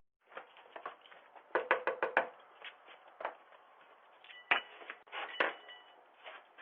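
Scattered knocks and taps: a quick run of about five around two seconds in, then single knocks and two sharp clicks, each of the clicks followed by a brief faint tone, heard through a thin, muffled-sounding recording.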